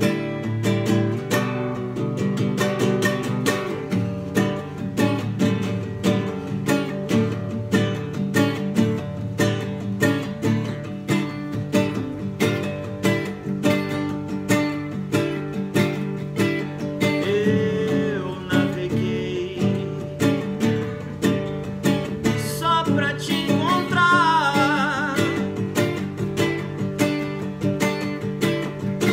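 Two acoustic guitars, a steel-string jumbo and a nylon-string classical guitar, strummed and picked together in a steady rhythm. A wavering higher melody line comes and goes over them in the second half.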